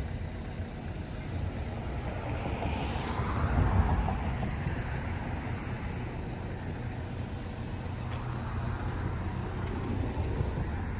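Road traffic noise: a steady low rumble, with one vehicle passing and swelling loudest about three to four seconds in.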